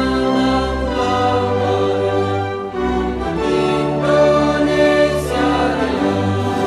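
Women's choir singing long held notes over a low sustained accompaniment, the chords changing every second or two.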